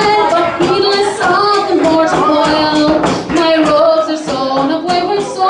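A woman singing a slow, melodic song into a microphone, holding some notes for about half a second.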